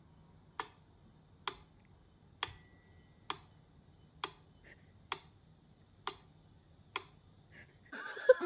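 Metronome ticking steadily, one sharp click a little under once a second; the click about two and a half seconds in carries a brief high ringing tone.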